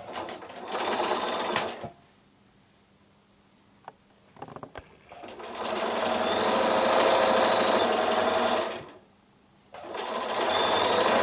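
Bernina sewing machine stitching a seam through two joined fabric strips, running in bursts: a short run about a second in, a pause, a longer run from about five seconds, a brief stop, then stitching again near the end.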